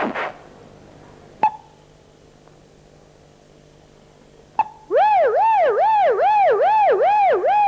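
A man's voice imitating a warbling siren-like alarm: a pitched wail sweeping up and down about two and a half times a second, starting about five seconds in after two sharp clicks.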